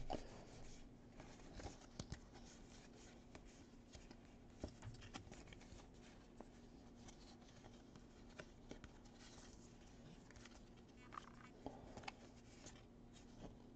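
Faint soft clicks and rustles of baseball cards being slid and flipped through by hand, over a faint steady hum.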